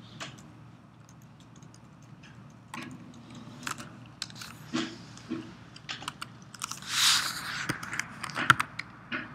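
Irregular clicks of a computer keyboard and mouse as images are selected and arranged on screen, with a short louder rustle about seven seconds in.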